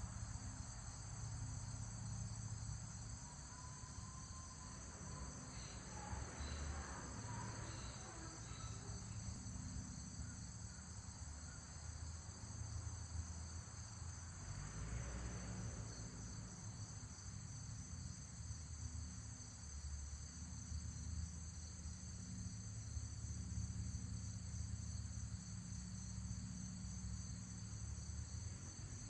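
Steady high chorus of insects shrilling among trees, with a low rumble underneath and a brief swell of noise about halfway through.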